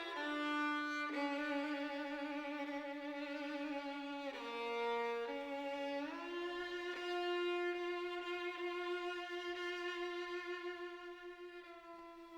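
Background music: a bowed-string melody, a quick falling run into long held notes, the last of them fading near the end.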